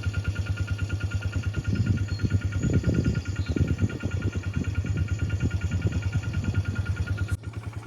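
A vehicle engine idling steadily, with an even rapid pulse, and a stretch of louder irregular low rumble about two to three seconds in.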